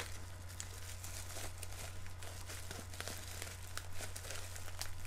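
Plastic bubble wrap and packing tape crinkling and crackling in the hands as a taped package is picked and pulled at, with scattered small clicks, over a steady low hum.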